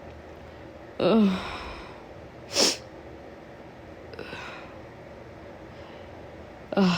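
A woman with a summer cold coughing: a hoarse, voiced cough that falls in pitch about a second in, then a short sharp one about a second and a half later, and a softer breath near four seconds.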